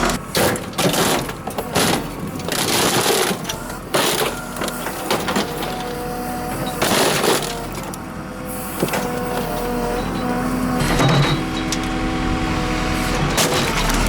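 Old washing machines being crushed by a JCB 3CX backhoe loader: repeated cracking and crunching of their sheet-metal and plastic casings. Steady held tones come in during the second half.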